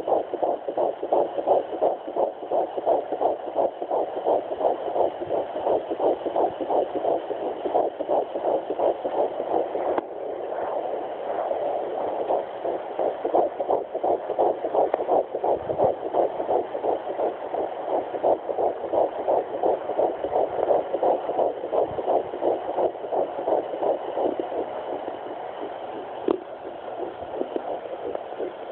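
Fetal heartbeats at 10 weeks' gestation played through a Sonoline B handheld fetal doppler's speaker: a fast, even run of pulsing beats. About a third of the way in the beats turn smoother and run closer together.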